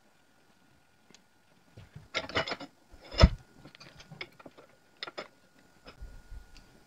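Handling noises at a bench vise as a braided stainless AN hose end is threaded onto its aluminum fitting by hand: a cluster of rattling clicks about two seconds in, a single sharp knock just after three seconds, and a few more clicks around five seconds.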